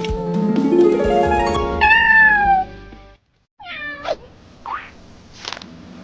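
Cat meows over background music: a long falling meow about two seconds in. The music cuts off just after three seconds, followed by a quieter meow and two short cries.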